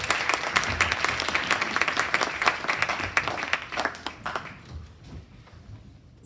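Audience clapping after a song, a dense patter of many hands that thins out and dies away about four to five seconds in.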